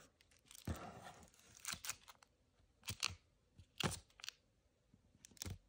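Foil trading-card packs crinkling in the hands and being set down on a wooden table: a few short rustles and light, sharp taps.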